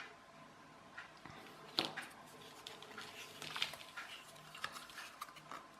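Irregular small clicks and taps of a plastic photocell light-switch housing and its parts being handled and turned over, with one sharper click about two seconds in and a busier run of clicks around the middle.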